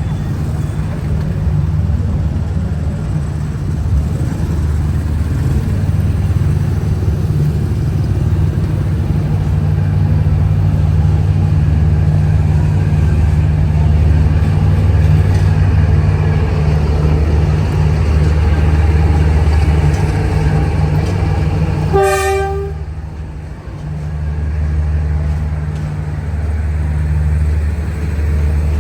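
D19E diesel-electric locomotive engine running with a steady deep drone as it hauls a passenger train away from the station. About 22 seconds in, the horn gives one short blast.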